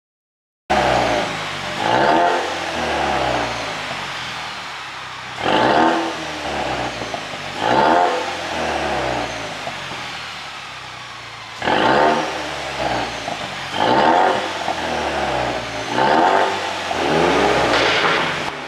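Exhaust of a 2021 Ford Mustang's 2.3-litre turbocharged four-cylinder EcoBoost engine with a pop-and-crackle ECU tune, revved about seven times in quick blips that rise and fall, settling back between them. The sound cuts in suddenly under a second in.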